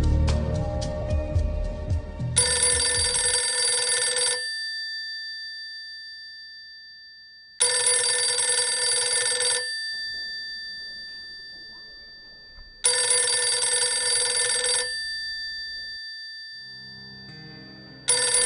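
Payphone bell ringing in repeated rings, each about two seconds long with a ringing tail, about five seconds apart: three full rings, and a fourth starting near the end. Music fades out under the first ring.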